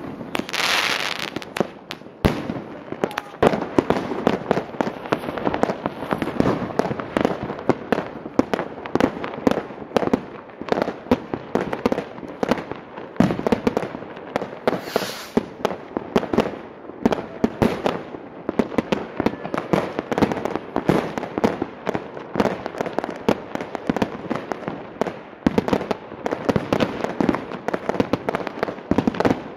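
Dense, irregular crackling of many small sharp pops, continuing without a break.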